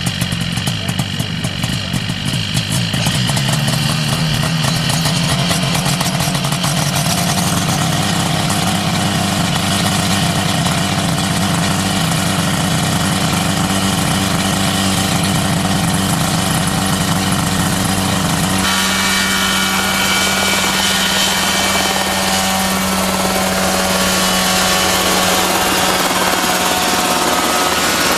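Small ultralight helicopter's engine and rotor running steadily with a fast pulsing beat. About two-thirds of the way through the sound changes abruptly to a smoother, steadier engine tone.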